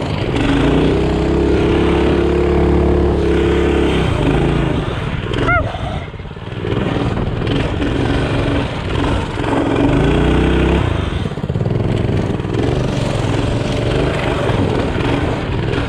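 Small gasoline mini bike engine running at steady revs for a few seconds, then easing off about four seconds in; it picks up again for a moment near ten seconds, over a constant rushing noise.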